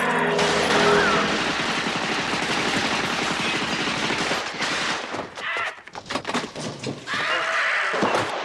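Film gunfire: a dense, rapid run of shots for about five seconds, then scattered single shots, and a big splash of water near the end.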